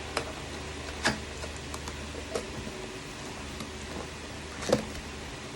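Cardboard box and packaging being handled: a few scattered sharp clicks and taps, the loudest near the end, over a steady low hum.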